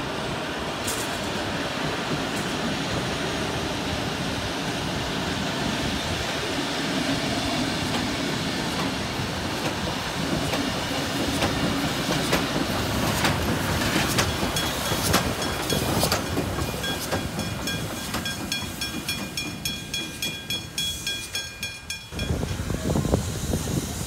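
Steam-hauled train of wooden carriages with K-class steam locomotive K153 rolling past at a level crossing, wheels clattering over the rail joints. In the second half, a level-crossing bell rings in an even repeated ding as the train noise fades, and near the end the sound cuts to a louder, different scene.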